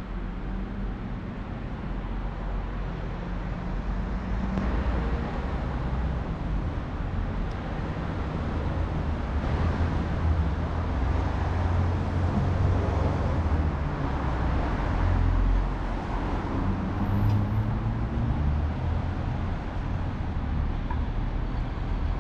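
Urban road traffic: a steady rumble of passing cars, swelling and easing as vehicles go by.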